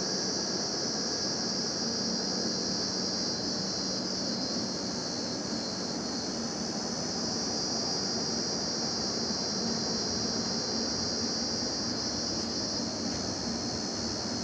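Indian Railways LHB passenger coaches rolling past on the track: a steady rushing rumble of wheels on rail with a high hiss over it and no distinct rhythmic beats.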